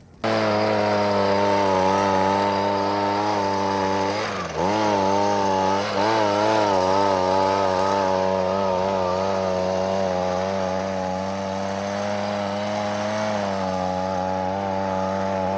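Chainsaw engine running at high speed, steady throughout except for a brief dip in pitch about four and a half seconds in, after which it picks up again.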